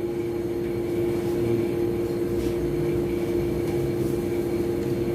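Steady machine hum at a constant pitch, with a low rumble beneath it.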